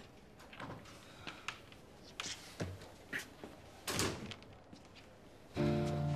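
Scattered footsteps and soft knocks on a hard floor as a person walks up and settles against a wall. Near the end, background music of held notes comes in.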